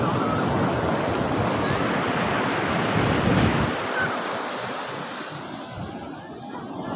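Ocean surf breaking and washing up the sand in a steady rush. It eases after about four seconds and picks up again near the end.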